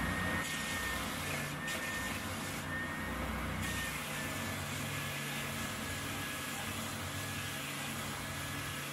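Scheppach OSM600 oscillating belt sander running, its sanding belt grinding the corner of a small piece of wood, with the dust extraction switched off. A steady motor hum with a faint high whine and an even rasp of sanding.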